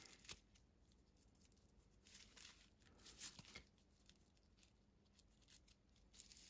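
Faint crinkly rustling of raffia yarn being pulled through stitches by a crochet hook, in a few short patches.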